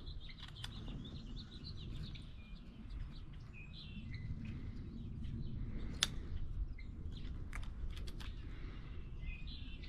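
Small birds chirping intermittently over a steady low rumble, with a sharp click about six seconds in and a few fainter clicks shortly after.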